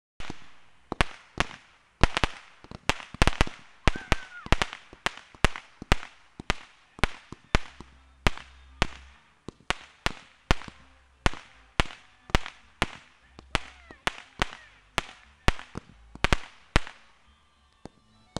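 Fireworks going off in a rapid, irregular run of sharp bangs, about two a second, with a short rising whistle about four seconds in. The bangs thin out near the end.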